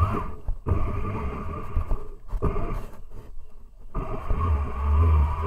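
Electric jet-drive pump of a DIY wooden jet board running, with a wavering whine over churning water and rumble. The sound drops out briefly several times, then the rumble swells about four seconds in as the board gets under way from a slow start.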